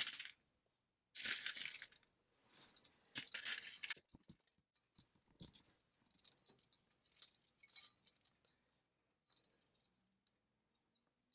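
Faint clinking and jangling of metal costume jewelry (chains, earrings, beads) as hands rummage through a pile of it, in short scattered bursts.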